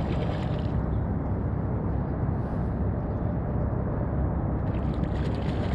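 Steady low outdoor rumble, with brief light crackling near the start and again about five seconds in.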